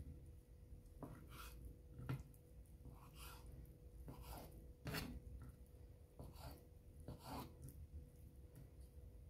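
Kitchen knife cutting raw chicken on a wooden cutting board: faint soft cuts through the meat, with the blade knocking on the board now and then, most clearly about one, two and five seconds in.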